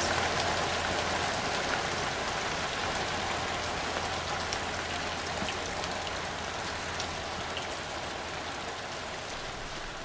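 Rain falling steadily, with scattered raindrop ticks, slowly growing quieter.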